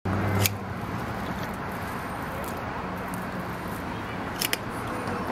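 Steady outdoor background noise with two sharp clicks, one about half a second in and another about four and a half seconds in.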